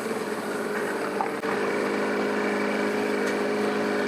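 An engine idling steadily. After a brief click about a second and a half in, it becomes louder and steadier.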